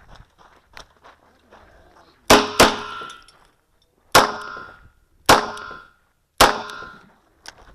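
Five handgun shots: a quick pair a couple of seconds in, then three single shots about a second apart. Each shot is followed by a brief ringing tail.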